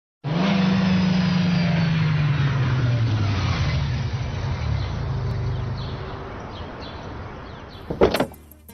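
A convertible sports car drives past, its engine note falling in pitch and fading away over several seconds. About eight seconds in comes a single loud thump, the loudest sound, and music begins just after it.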